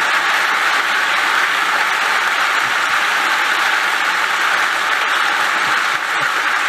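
Sustained applause from a large audience, steady and even throughout.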